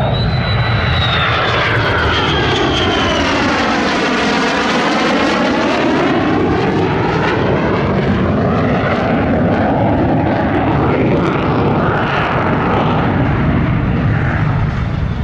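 F-35A Lightning II's Pratt & Whitney F135 jet engine roaring steadily through a demonstration maneuver. A high whine falls over the first few seconds, and a whooshing sweep falls and then rises in pitch as the jet passes.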